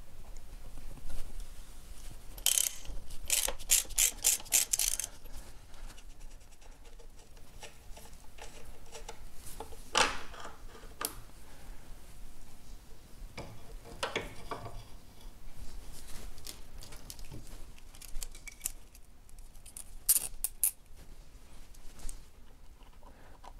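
Hand tools on a motorcycle's footpeg and brake pedal fittings: a spanner and screwdriver clicking and clinking on metal. A quick run of clicks comes a few seconds in, followed by scattered single clinks and a few more clicks near the end.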